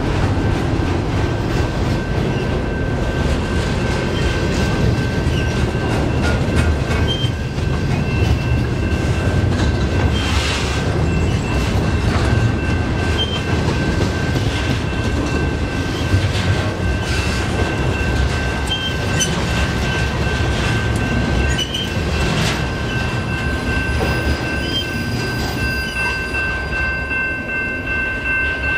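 Double-stack container well cars rolling past: a steady rumble of steel wheels on rail with scattered clicks over the rail joints and a steady high-pitched wheel squeal. The sound eases slightly near the end as the last car goes by.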